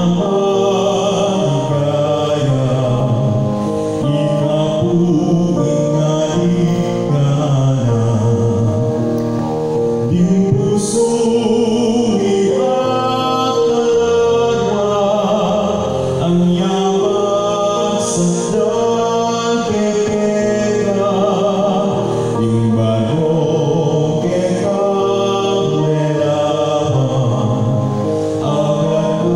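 A Kapampangan Marian hymn sung with musical accompaniment, a slow devotional melody addressing the Virgin that carries on without a break.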